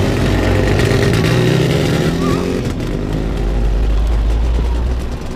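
Two classic Jawa two-stroke motorcycles pulling away and riding off, their engines revving up and then running steadily, getting a little fainter near the end.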